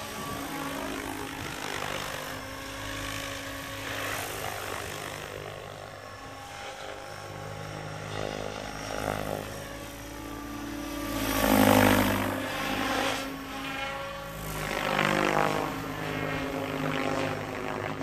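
Electric SAB Goblin 770 RC helicopter in flight: main rotor blades whooshing over the motor and gear whine, the pitch rising and falling as it swings past, loudest on a pass about two-thirds of the way through.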